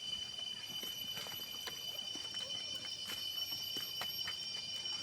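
Steady high-pitched drone of forest insects, several constant shrill tones held without a break, with a few faint scattered clicks.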